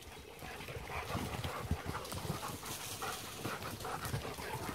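Several dogs running and playing on a dirt forest trail: irregular paw thuds on the ground and rustling.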